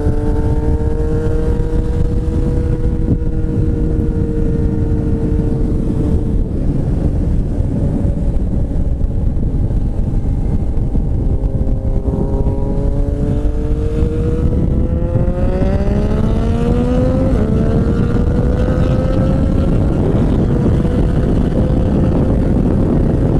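Yamaha MT-07 parallel-twin motorcycle engine pulling at road speed under heavy wind rush. The engine note sags slightly early, then climbs steadily under acceleration from about halfway, drops at an upshift about three-quarters through and holds steady after.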